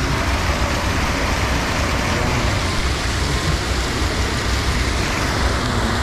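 Mountain stream rushing over a small weir and down a walled channel: a loud, steady wash of white water.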